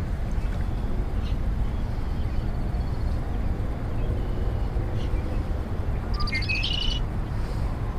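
A bird calls with a short run of chirps about six seconds in, over a steady low rumble of outdoor background noise.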